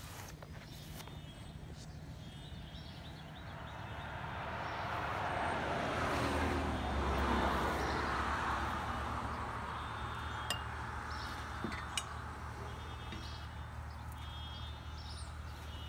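A vehicle driving past on the road, swelling to its loudest about halfway through and then fading. A few sharp clinks of glassware follow a little later.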